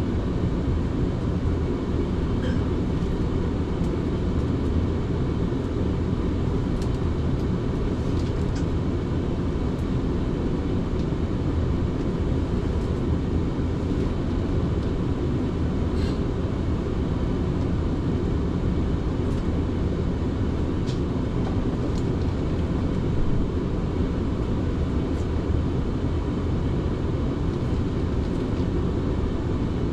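South Western Railway electric train running steadily between stations, heard from inside the carriage: an even low rumble of wheels on the rails, with occasional faint clicks.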